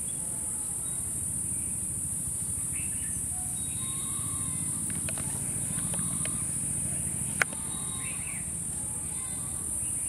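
A steady, high-pitched drone of insects, with a few faint short chirps and a single sharp click about seven seconds in.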